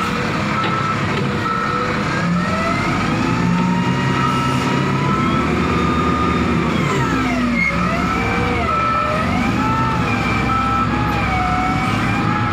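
Heavy diesel machinery working under load: engines revving up over a few seconds, then dropping back. Beneath it runs a steady high-pitched tone, and over it a whine that rises, falls and wavers.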